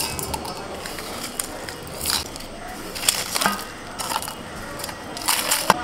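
Dry roasted whole spices and crisp bay leaves being scraped off a steel plate into a steel mixer-grinder jar, rattling and crackling in irregular bursts, with sharp clinks of steel on steel.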